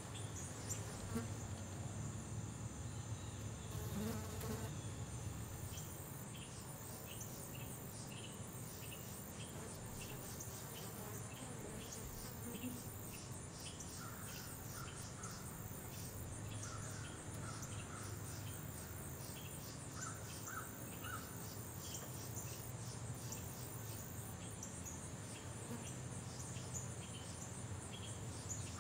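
Outdoor chorus of singing insects: a steady, high-pitched pulsing trill throughout, with short chirps repeating about once a second, over a low steady background hum.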